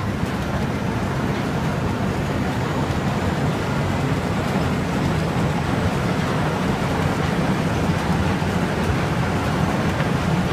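The 148-year-old belt-driven machinery of a flour mill running: roller mills, overhead belts and pulleys giving a steady, loud mechanical rumble.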